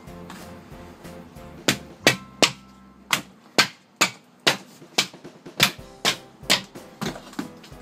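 A wooden mallet striking a splitting blade driven into a green bamboo culm to split it into quarters: a steady run of sharp knocks, about two a second, starting a little under two seconds in.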